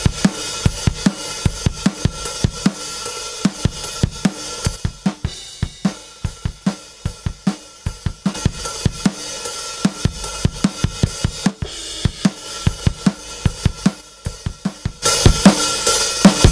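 Acoustic drum kit recording playing a steady groove of kick, snare, hi-hat and cymbals. About 15 seconds in it turns louder and brighter, with more cymbal.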